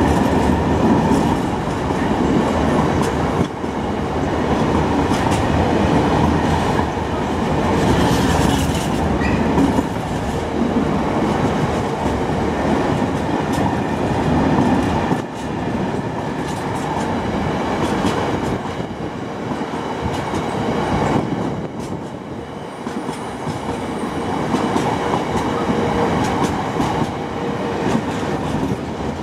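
A long freight train of bogie hopper wagons rolling past at a steady speed, with a continuous rumble and the clatter of wheels over the rails.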